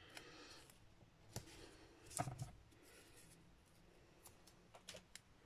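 Faint rustling and a few soft taps as strips of double-sided tear-and-tape are pulled from the roll and pressed onto card, the loudest tap a little over two seconds in.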